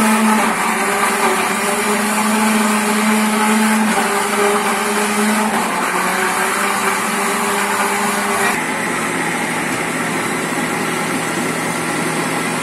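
Walita countertop blender running, blending a cake batter of eggs, sugar, margarine, milk and grated coconut as pieces of sweet potato are added through the lid. The motor hum is steady, shifting pitch a few times and dropping lower about eight and a half seconds in.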